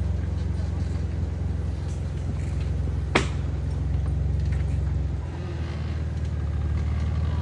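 Lifted off-road Jeep's engine running at low revs as it crawls down a rock ledge: a steady low rumble that dips briefly about five seconds in. One sharp crack about three seconds in.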